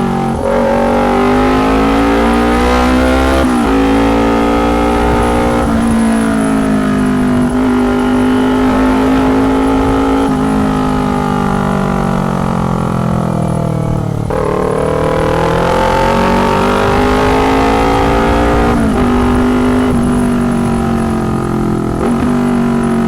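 2019 Kawasaki Ninja 250 parallel-twin engine through a loud, tinny aftermarket exhaust, ridden on the road. Its note climbs and then drops sharply several times as the rider goes through the throttle and gears.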